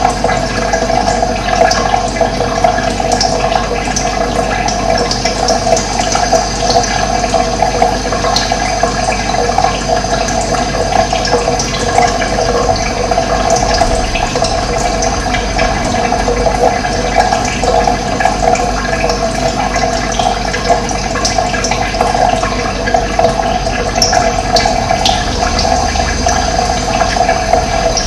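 Running water rushing steadily, with brief high bird chirps here and there.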